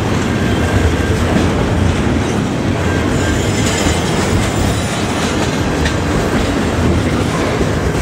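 Double-stack intermodal container well cars of a freight train rolling past at speed: the steady, loud rumble of steel wheels on the rails.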